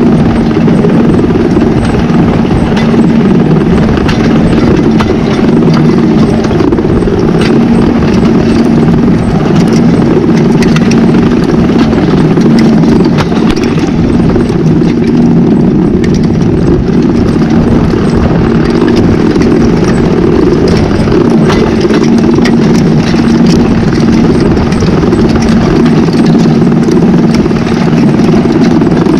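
Tractor engine running steadily under load while pulling a plough, a constant droning hum with frequent light clicks and rattles over it.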